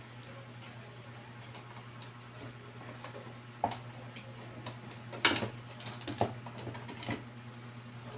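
Scattered light clicks and knocks of small tools and parts being handled on a workbench, over a steady low electrical hum. The loudest click comes a little past midway.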